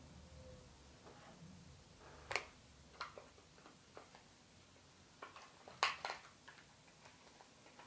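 A few faint clicks and taps of hands handling a small item and its packaging, spaced out, with the loudest cluster about six seconds in.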